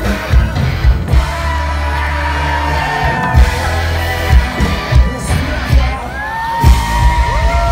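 Live gypsy-punk band music over the festival PA, heard from in the crowd: a male singer's voice over heavy drum beats and bass, with fans shouting.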